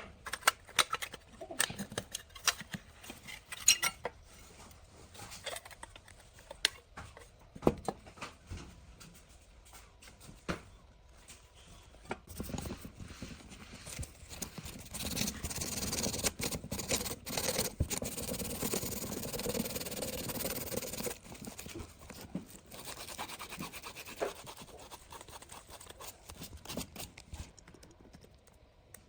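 Handling of small parts and tools during a repair: scattered clicks and taps, with about ten seconds of steady scraping or scrubbing noise in the middle.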